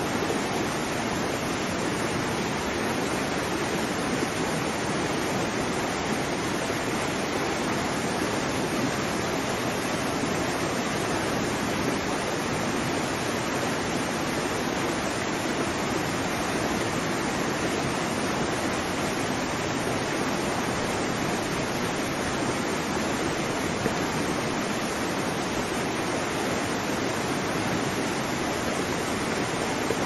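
Waterfall: a steady, unbroken rush of falling water that holds at an even level.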